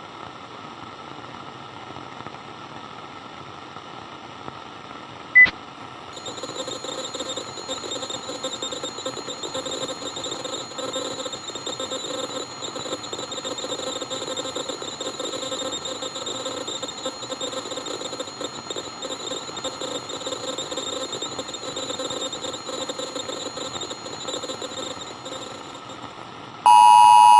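Radio static hissing with a single sharp click about five seconds in, after which the static grows louder with a faint steady whine in it. A loud electronic beep starts near the end.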